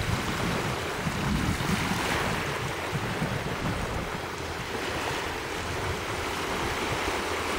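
Steady wind buffeting the microphone over a continuous wash of small surf on the beach.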